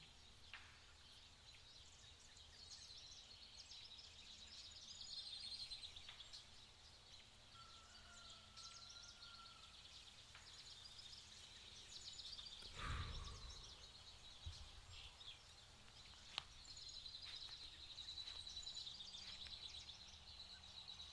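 Faint outdoor ambience with steady high-pitched chirping, a short whistled note a few seconds in, and a soft dull thump about halfway through.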